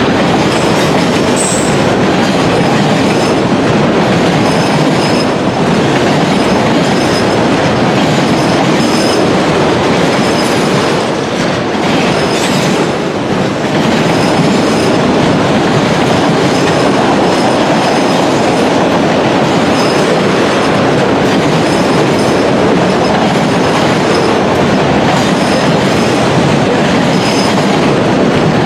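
CN mixed freight train of autorack cars passing close by at speed: a loud, steady rolling noise of steel wheels on rail that echoes.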